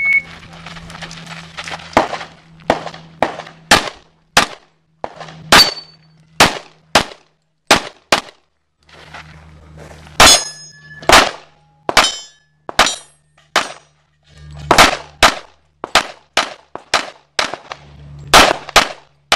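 A short shot-timer beep right at the start, then an STI Edge 2011-pattern pistol firing a USPSA stage: about thirty rapid shots in quick strings, broken by short pauses for moving between positions. A couple of the shots around the middle leave a ringing tone after them.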